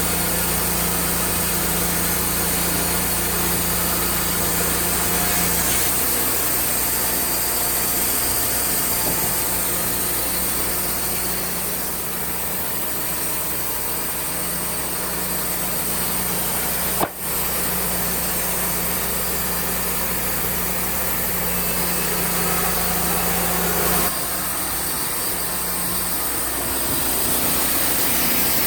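Wood-Mizer band sawmill running steadily as its blade saws through a log, the engine note shifting a couple of times. A brief dropout a little past halfway.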